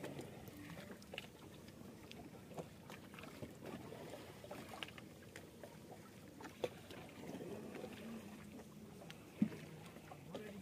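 Water lapping quietly against the hull of a small fishing boat, with scattered light clicks and knocks as bait fish are handled in the boat; a sharper knock comes about six and a half seconds in and another near the end.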